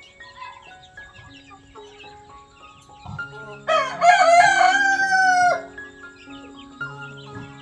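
A rooster crows once, about four seconds in: a single call of about two seconds that rises, holds and drops away, standing well above soft background music of held notes.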